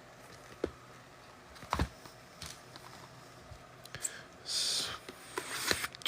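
Trading cards and packaging handled on a table: scattered light taps and clicks, then a short rustle about four and a half seconds in.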